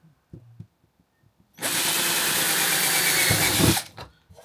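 Power drill running for about two seconds, starting about a second and a half in, as it drills a hole through the bottom of a small pot. A few light handling clicks come before and after it.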